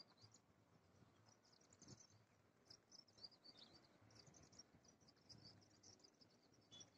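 Near silence with faint, high-pitched, irregular chirping from small wild creatures.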